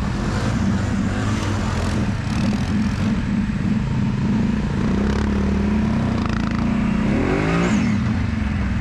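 ATV engines running steadily while riding a dirt trail, with a brief rise and fall in revs near the end.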